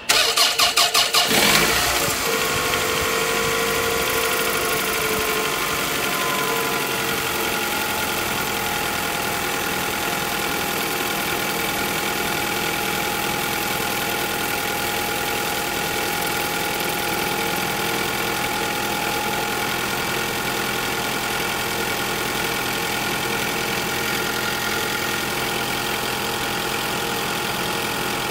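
Toyota Camry 2AZ-FE 2.4-litre four-cylinder engine being started: the starter cranks for about a second and a half, the engine catches, and it settles into a steady idle, with a whine in the first seconds that steps down in pitch. The owner is recording an unexplained noise that he hears for about the first second after starting, which then goes away.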